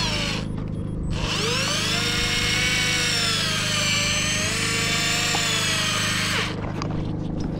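Electric fishing reel's motor whining as it winds against a hooked fish, its pitch sagging and climbing as the load changes; it cuts out briefly about half a second in, spins back up with a rising whine, and drops away near the end. A steady low engine hum runs underneath.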